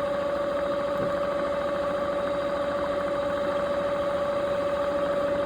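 Sportsman 1000 inverter generator's stator and rotor, run as a motor from a 72-volt supply, spinning steadily at its low speed setting with a steady whine.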